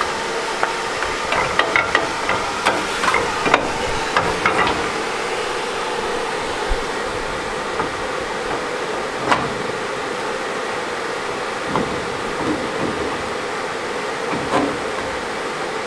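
Light hammer taps on a 2001 Toyota 4Runner's rear axle assembly, seating the new axle seal: a cluster of taps in the first few seconds and a few single taps later. A steady blower-like hiss runs underneath.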